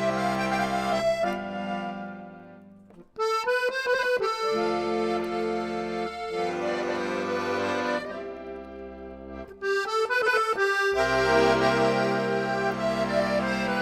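Instrumental music of sustained chords over a bass line, played in phrases. It fades out about three seconds in, comes back, and breaks off briefly again around nine to ten seconds.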